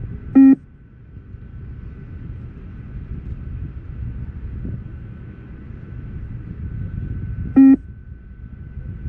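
Two short electronic beeps about seven seconds apart: the shuttle-timing signals of a 20-metre beep test (multistage fitness test), each marking when the runner must reach the line. A low rumble runs under and between them.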